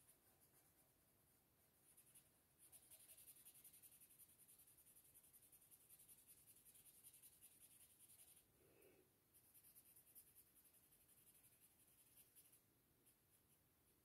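Faint, rapid rubbing of a paper blending stump over drawing paper, smudging pencil graphite into shading. It comes in two long stretches of quick strokes, with a short break about eight and a half seconds in.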